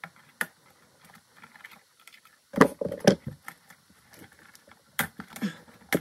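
Small clicks and metallic rattles of an old electrical outlet and its copper wires being handled as the hot wire terminal screws are loosened and the outlet is unhooked from the wires, with a few louder knocks about two and a half seconds in and again about five seconds in.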